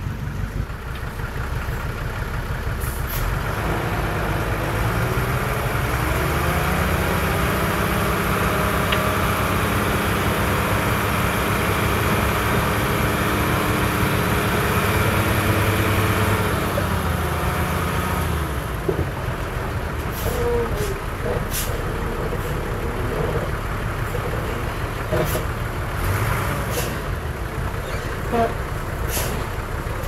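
A heavy machine's diesel engine revs up a few seconds in, runs at high revs under load, and falls back to a lower speed a little past the middle. Scattered sharp knocks and clanks follow.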